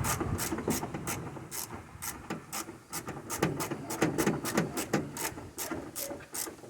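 Ratchet wrench with a 10 mm socket clicking in an even run of strokes, about three clicks a second, as bolts holding a car's fuse box are backed out.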